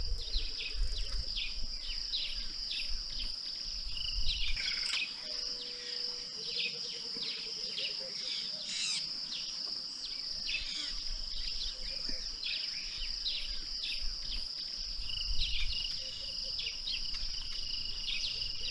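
Savanna ambience: a steady high-pitched insect drone, with many short, quick bird chirps over it throughout.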